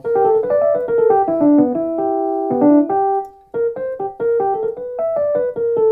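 Roland RD08 stage piano playing its Tine EP MK2 Rhodes-style electric piano patch, with the treble turned down on the EQ. It plays a quick bluesy phrase of single notes and short chords, breaks off briefly about three and a half seconds in, then carries on.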